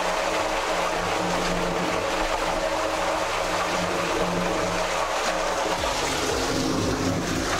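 Spring water running steadily from the outlet inside a concrete spring-catchment chamber, a constant rush heard from above through the open manhole shaft.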